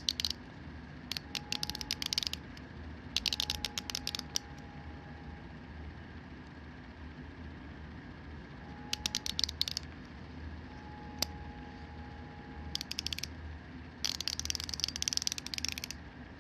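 SabreCut MRSC03 72-tooth stainless steel mini micro ratchet being worked by hand: the pawl clicks rapidly over the fine teeth in about six short bursts, with pauses between them.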